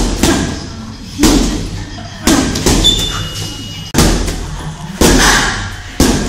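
Medicine ball slamming against a wall again and again, a heavy thud roughly once a second, each ringing briefly in the bare room.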